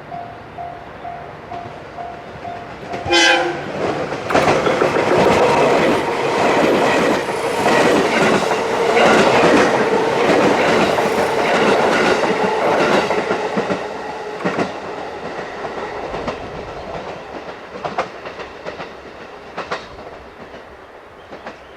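Level-crossing bell ringing in even pulses, then a short horn blast about three seconds in from a six-car JR 221 series electric train. The train then passes for about ten seconds with its wheels clacking over the rail joints, and the sound fades away toward the end.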